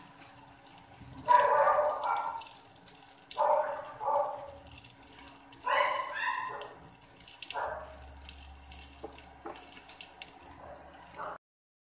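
Three loud animal calls about two seconds apart, then a fainter one, over a steady low hum.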